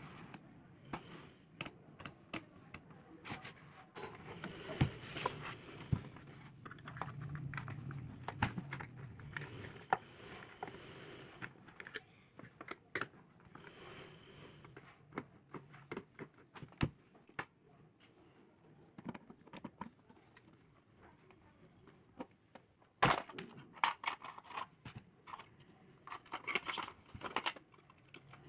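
Plastic casing of a rechargeable LED emergency light being handled and taken apart with a screwdriver: scattered clicks, knocks and rustling of plastic parts, with a burst of louder clicks and rattling in the last few seconds as the case comes open.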